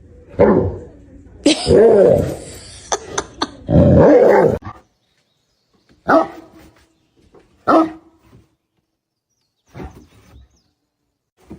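A dog barking about six times: three longer, louder barks in the first few seconds, then shorter, fainter ones spaced out with silence between.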